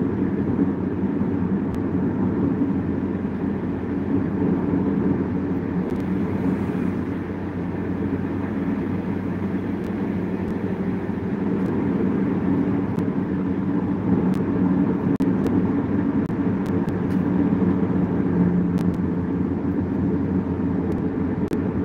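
Steady road and engine noise heard from inside a car's cabin while it cruises on a motorway: an even, low rumble with no sudden events.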